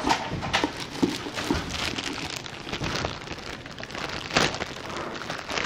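Clear plastic packaging crinkling and rustling in irregular crackles as a plush toy sealed in a plastic bag is handled and pulled out of a cardboard box.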